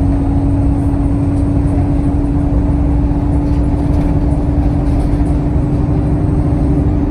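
Alexander Dennis Enviro 200 single-decker bus engine pulling steadily: a heavy rumble with one steady whine that climbs slightly in pitch.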